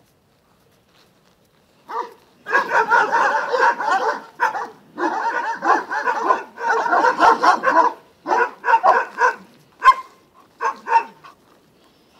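Romanian Bucovina Shepherd dogs barking at other dogs across a wire fence. After about two seconds of quiet, a fast, overlapping volley of barks from several dogs begins, then breaks up into separate barks spaced apart in the last few seconds.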